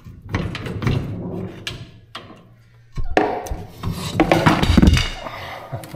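Rear differential third member of a 1991 Toyota pickup being worked loose and slid out of the axle housing: metal scraping and clunking in two bouts, the second louder.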